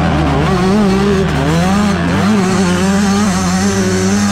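Yamaha YZ125 two-stroke single-cylinder motocross engine running hard at high revs, its pitch wavering up and down as the throttle is worked.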